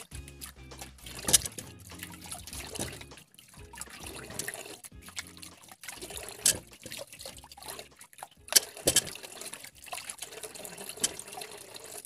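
A thin stream of water trickling and splashing over hands and peeled cassava pieces as they are rinsed over a metal basin. A few sharp knocks come as the pieces are set down in the metal pot.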